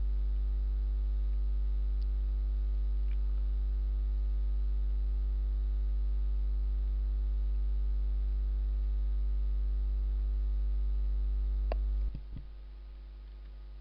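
Steady electrical mains hum at about 50 Hz with its evenly spaced overtones, picked up in the recording chain, with a few faint clicks. About twelve seconds in, the hum drops suddenly to a much lower level.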